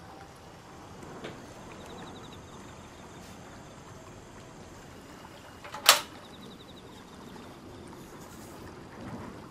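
A spoon pressing soaked tea leaves in a metal mesh tea strainer over a glass measuring cup, with soft scraping and handling sounds. One sharp clink a little past the middle, the loudest sound.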